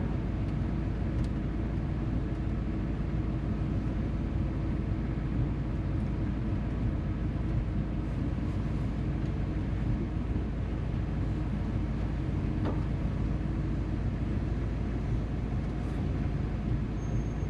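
Steady engine and road noise heard from inside a moving classic car: a constant low rumble with a steady hum.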